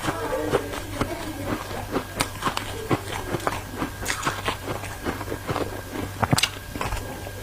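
Ice being bitten and crunched between the teeth: many sharp, irregular cracks in quick succession over a steady low hum.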